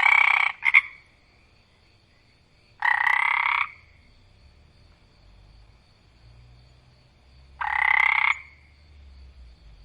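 A single frog croaking loudly: three croaks under a second each, spaced a few seconds apart, the first followed by a brief extra note. A faint steady high-pitched tone runs in the background.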